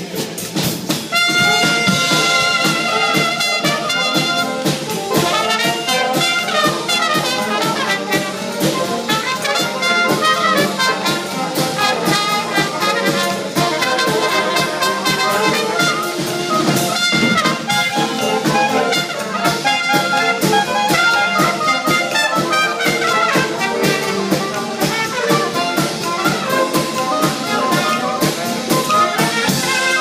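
Live small jazz band playing: trumpet, saxophones and trombone together over a drum kit.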